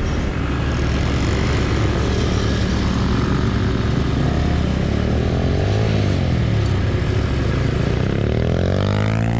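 ATV engine running under way, with steady wind noise. Its pitch dips and comes back up about five to six seconds in, then climbs steeply near the end as the engine revs up.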